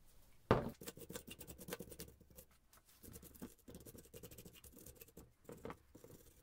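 A single heavy thump about half a second in, as the old electric motor in its steel bracket is set down on the bench. Then a run of quick, scratchy scraping strokes as its grimy end housing is scrubbed with a hand-held metal tool.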